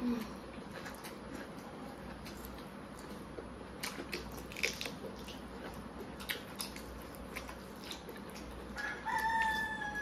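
Two people eating with their hands: scattered small clicks and smacks of chewing and fingers working rice on plates. Near the end a single long animal call, held for about two seconds and falling slightly in pitch, rises above the eating sounds.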